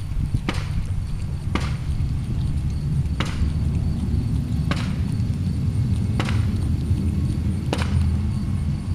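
A pug licking and mouthing a raw egg and its shell: sharp wet smacks about every second and a half, six in all, over a steady low rumble.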